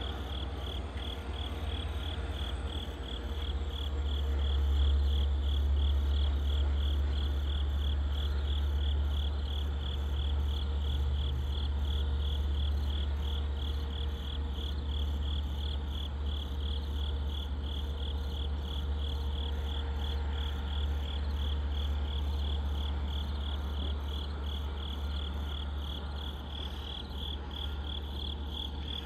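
Crickets chirping in a fast, even pulse, over a steady low rumble.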